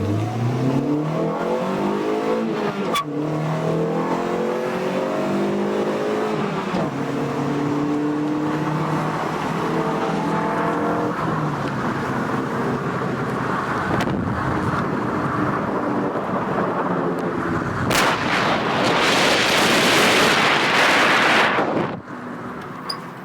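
Dodge/Plymouth Neon's four-cylinder engine accelerating hard, its pitch climbing and dropping back with each of several upshifts, then running steadily. Near the end a loud rushing noise takes over for a few seconds and cuts off suddenly.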